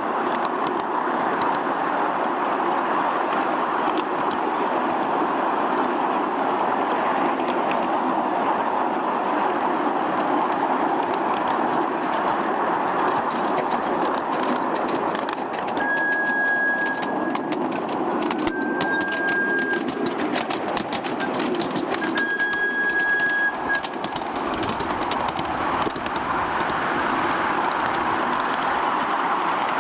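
Miniature live-steam locomotive running along its track, a steady rushing mix of exhaust and wheels on rail. Its steam whistle blows three times about two-thirds of the way through, one high clear tone each time, the third blast the longest.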